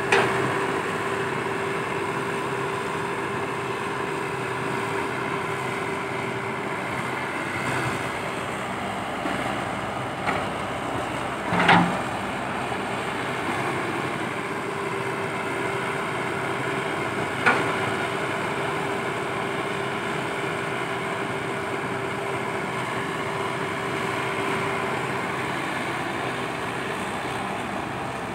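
Komatsu PC120-5 crawler excavator's diesel engine running steadily with a held tone over it, broken by a few sharp clanks, the loudest about twelve seconds in and another about seventeen seconds in.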